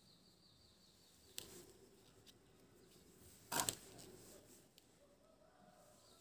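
Two short knocks over quiet room tone, a faint one about a second and a half in and a louder one at about three and a half seconds.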